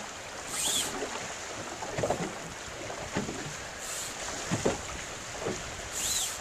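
Choppy water slapping against a small boat's hull in irregular splashes, with wind buffeting the microphone. Twice there is a brief high-pitched whine.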